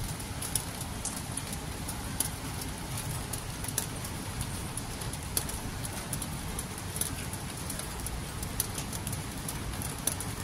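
Steady rain falling, with scattered drops ticking irregularly, several times a second, on a wet metal balcony rail and drying rack.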